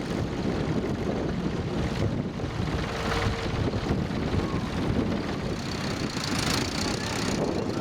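Strong wind buffeting the microphone in a steady, uneven low rumble.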